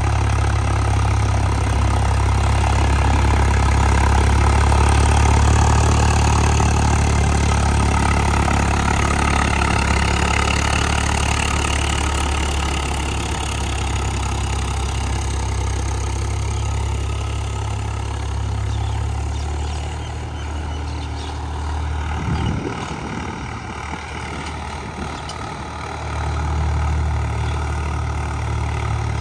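Swaraj 744 FE tractor's three-cylinder diesel engine running steadily with a deep drone. It is loudest in the first several seconds, eases off about two-thirds of the way through, and picks up again near the end.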